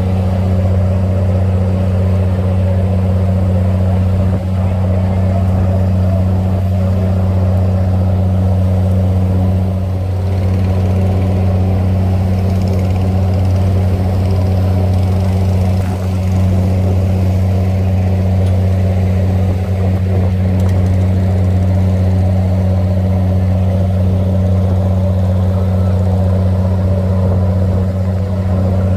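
A boat engine running steadily on the river, a loud, even low drone that hardly changes.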